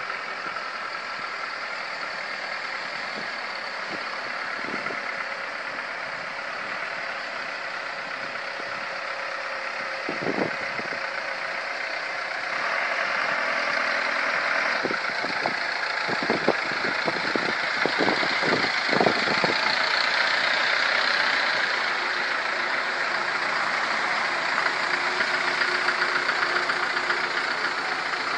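Slow convoy of vehicles rolling past with their engines running, funeral limousines and then ice cream vans. The noise grows louder about halfway through as the vans come by, with a few short low thumps.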